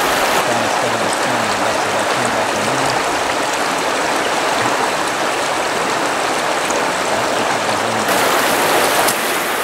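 Steady rush of river water flowing over a shallow riffle.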